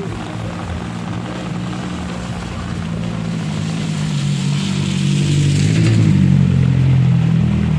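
A motor vehicle's engine draws near and passes, growing steadily louder to a peak about six seconds in, then easing off near the end.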